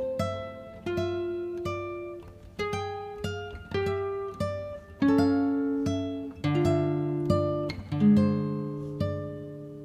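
Background music: a plucked acoustic guitar melody, single notes struck about once or twice a second and left to ring out over lower bass notes.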